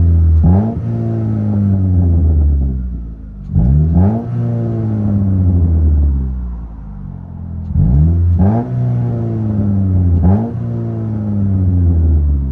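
2006 Pontiac Solstice's 2.4-litre inline-four revved through a muffler-deleted exhaust, heard from inside the cabin. It comes in three groups of quick throttle blips about four seconds apart, each climbing sharply and then sinking slowly back toward idle.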